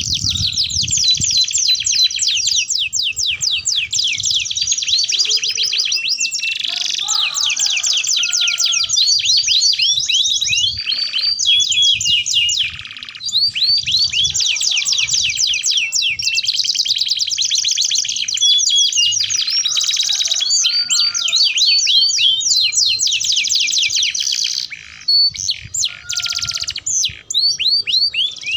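Domestic canaries singing: a long, continuous song of rapid, high-pitched trills and rolling phrases, with brief pauses about halfway through and again a few seconds before the end.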